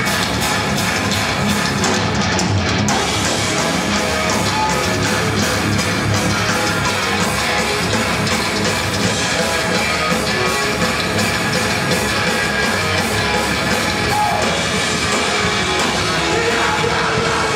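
Live heavy metal band playing: distorted electric guitars, bass guitar and a drum kit, loud and unbroken.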